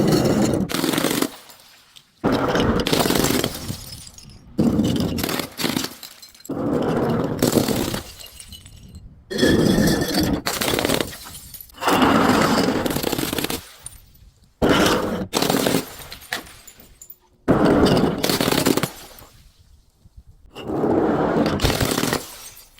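Things being broken and crushed, glass bottles among them: about a dozen short shattering, crunching crashes in a row, each lasting about a second and starting and stopping abruptly.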